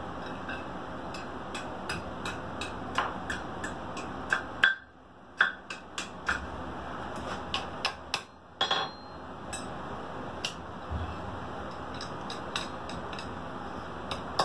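Hammer striking a hot steel bar on an anvil, two or three light blows a second with a couple of short pauses, as the bar's end is curled into a loop. A steady hiss runs underneath.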